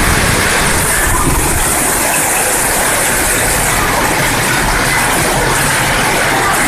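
Heavy rain pouring down in a steady, loud hiss, falling on a corrugated metal roof overhead.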